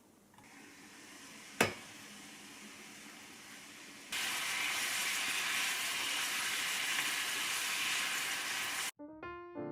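Oyster mushrooms sizzling in a frying pan: a loud, steady sizzle that starts suddenly about four seconds in and cuts off abruptly near the end. Before it, one sharp knock over a faint hiss.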